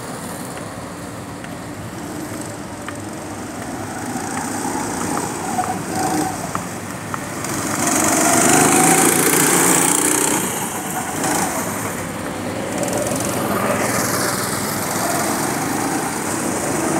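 Small go-kart engines buzzing as karts lap the track, loudest about eight to ten seconds in as a kart passes close.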